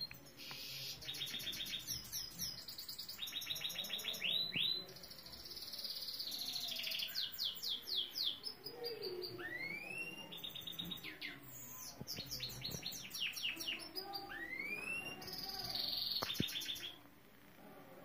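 Caged canary (saira) singing a long song of rapid trills and repeated notes mixed with rising whistled notes. The song stops about a second before the end.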